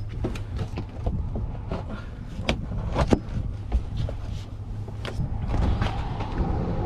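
A string of sharp clicks and knocks, the loudest about two and a half to three seconds in, over a steady low rumble.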